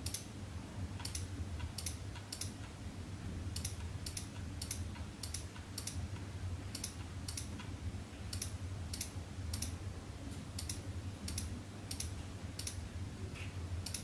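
Computer mouse clicking, about twenty short, sharp clicks at an uneven pace with several in quick pairs, as settings buttons are pressed one after another, over a steady low hum.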